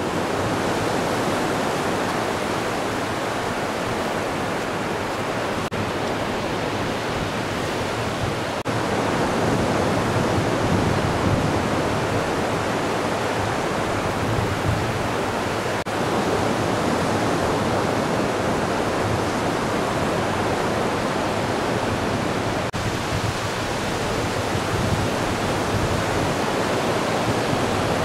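Ocean surf: chest-high waves breaking and washing ashore in a steady rush of noise.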